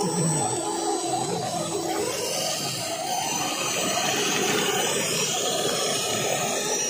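Small electric RC crawler motors and gear trains whining steadily as the scale off-road trucks drive.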